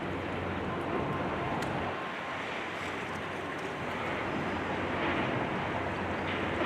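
Steady demolition-site noise: a diesel engine, likely the high-reach excavator's, running with a low hum under a broad rushing noise, with a few faint clicks of debris.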